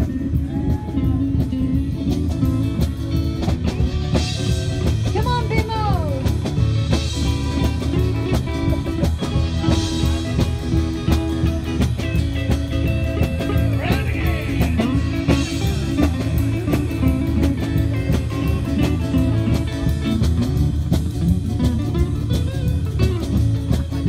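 A band playing electric guitar over a drum kit with a steady beat, the guitar bending notes now and then.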